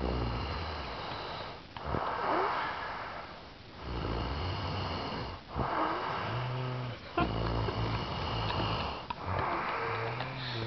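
A man snoring on purpose while awake. It comes as a low buzzing snore on one breath after another: about six in a row, each around a second and a half long with short gaps between.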